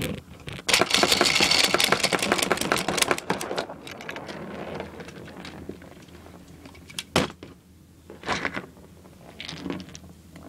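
Camera being picked up and repositioned after falling: a few seconds of close, loud rubbing and rattling against the microphone, then a few separate light knocks as plastic toy parts are set down on a plastic bin lid.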